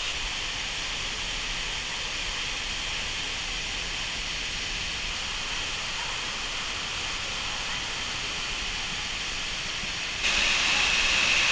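Waterfalls pouring down an artificial rock volcano, a steady rushing hiss of falling water that suddenly gets louder about ten seconds in.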